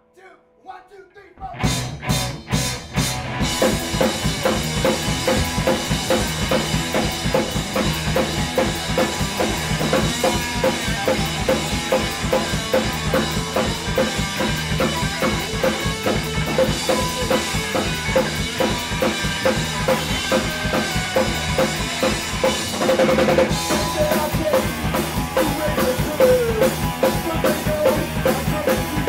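Punk rock band playing live: a count of four, then drums, bass and electric guitars come in together and play at full volume with a steady, driving drum beat. The sound grows fuller about three quarters of the way in.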